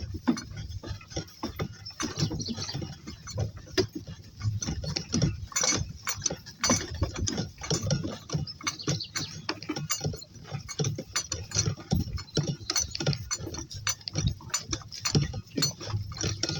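Two donkeys walking, with an irregular run of knocks and clattering from their hoofsteps and rattling gear.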